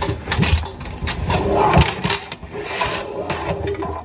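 Close rustling, scuffing and knocking of a fabric backpack being handled right next to the microphone, with a couple of heavier thumps.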